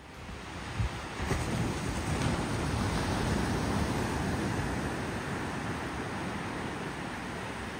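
Ocean surf breaking and washing onto a sandy beach, a steady rushing wash with wind rumbling on the microphone.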